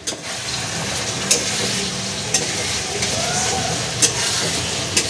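Steady sizzle of food frying in hot oil in a pan, with a few sharp clicks.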